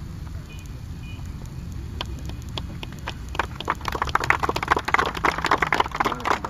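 A crowd clapping: a few scattered claps about two seconds in, building into steady applause from about halfway, over a low steady rumble.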